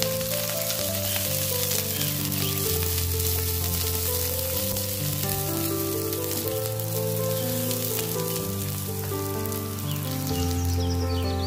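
Sliced onions, garlic, green chilli and curry leaves sizzling as they fry in a nonstick wok, stirred now and then with a silicone spatula. Background music with sustained notes changing about once a second plays throughout.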